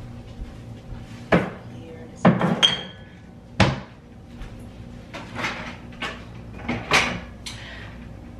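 Kitchen clatter: a few sharp knocks and clunks of containers and bottles being set down and put away, one with a brief ringing clink about two and a half seconds in, then softer bumps and rustles.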